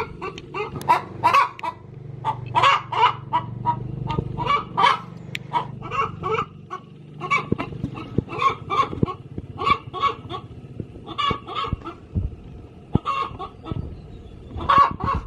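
Domestic hen clucking in a long run of short, repeated calls with brief pauses: the cackle of a hen about to lay an egg.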